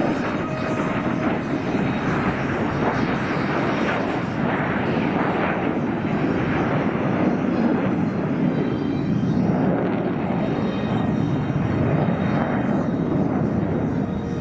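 Jet engine noise from four F-16 fighter jets passing overhead in formation: a steady, rushing rumble that swells and eases slightly without stopping.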